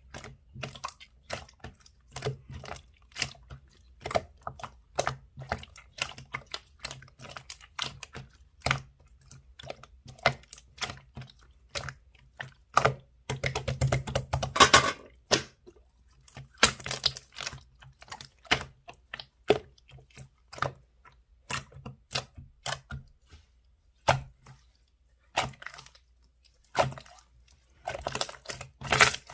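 Slime being pressed and poked by hand, giving a rapid, irregular stream of sticky clicks and small pops, with longer squishy stretches about halfway through and near the end.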